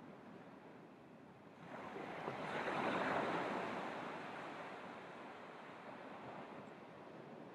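Surf: a wave breaks about two seconds in, rises to its loudest around three seconds, then washes out and fades over the next few seconds.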